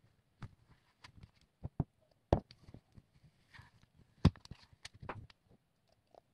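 A spoon scooping hard ice cream from a paperboard tub and knocking it into a plastic blender cup: scattered scrapes and taps, the two loudest knocks a little over two and about four seconds in.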